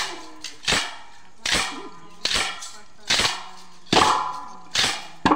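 Wooden chekka clappers of a chekka bhajana folk dance, struck in unison by the dancers: about seven sharp clacks at a slow even beat, roughly one every three-quarters of a second, each with a short ring.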